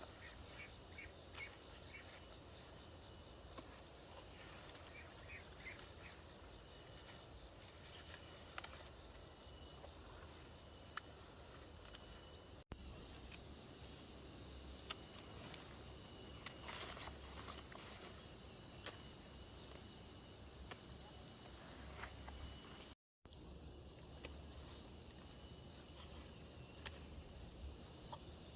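Steady outdoor chorus of insects, a continuous high pulsing trill, with a few faint clicks and small chirps scattered through it.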